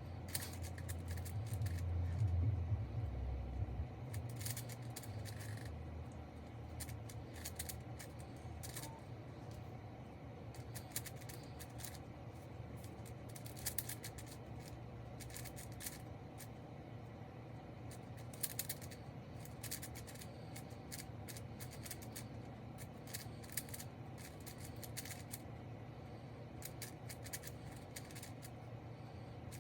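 Irregular plastic clicks and clacks of a speed cube being turned in the hands, with a low rumble of handling in the first few seconds.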